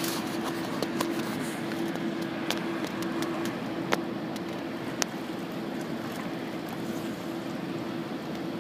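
A steady mechanical hum at one pitch over a constant rushing noise, with a few short sharp clicks about one, four and five seconds in.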